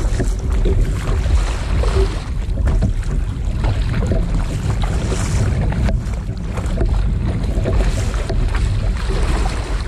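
Double-bladed kayak paddle stroking through choppy sea water, with repeated splashes and waves slapping the plastic hull, under a heavy wind rumble on the microphone.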